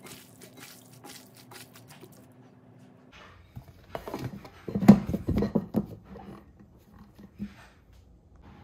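Wet squishing of raw chicken pieces being tossed by hand in a herb marinade in a glass bowl, then a cluster of knocks and thuds as a plastic lid is pressed onto the glass bowl, loudest about five seconds in.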